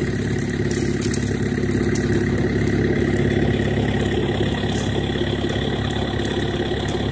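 An engine idling steadily, an even low hum that does not change, with a few faint clicks and snaps over it.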